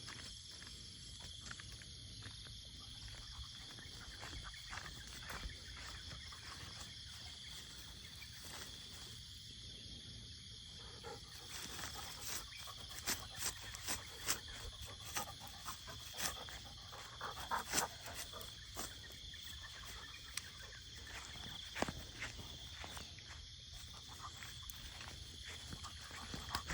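Steady high-pitched insect drone over faint background noise, with a run of sharp clicks and scuffs from about 11 seconds in that fade out after about 24 seconds.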